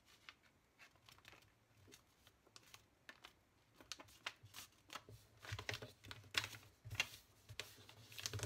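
Sheet of paper rustling and crinkling as a paper airplane's wing is folded and its crease pressed flat against a tabletop. It comes as faint, scattered crackles that grow busier in the second half.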